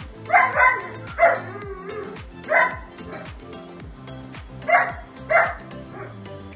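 Labrador puppies giving short, high barks, about six in all at uneven intervals, over background music with a steady beat.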